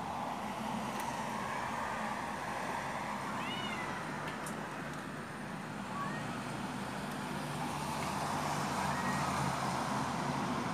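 Street cats in a standoff calling faintly a few times: one drawn-out rising-and-falling meow about three and a half seconds in, then short calls near six and nine seconds, over steady background noise.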